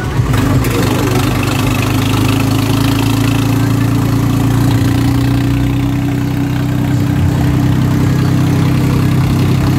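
Tractor's diesel engine running steadily while the tractor is driven along a road, heard from the driver's seat.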